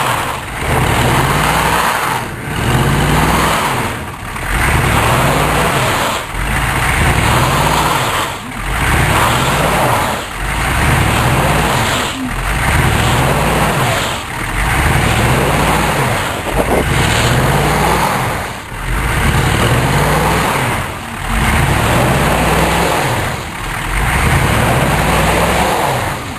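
A Chevrolet K5 Blazer's 6.2 diesel engine is revved up and let back down over and over, about once every two seconds, with a wide rushing noise over it. The truck is stuck in deep snow, and this is the driver rocking it and spinning the wheels to get free.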